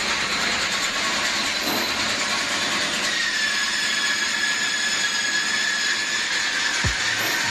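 Traub cam-operated single-spindle automatic lathe running: steady mechanical clatter with the hiss of cutting coolant pouring over the tooling. A thin high whine joins about three seconds in.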